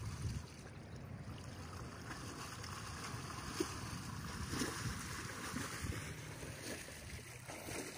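Water splashing and sloshing as a horse and a person wade through a shallow river, over a steady rush of water and wind rumble on the microphone.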